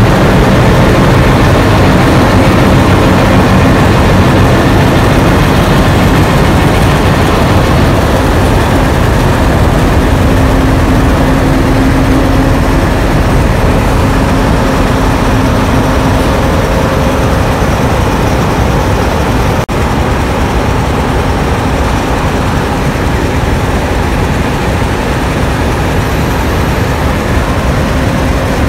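NSW 442 class diesel-electric locomotive's Alco V12 diesel engine idling, a loud, steady low-pitched running.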